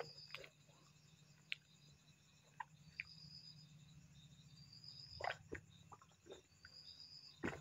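Near silence: faint gulping and swallowing clicks as cola is drunk from a large plastic bottle. Under it run a faint high chirp that repeats about every two seconds and a low steady hum.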